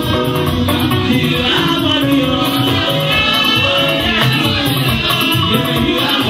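Church praise music with singing over a steady, even percussion beat.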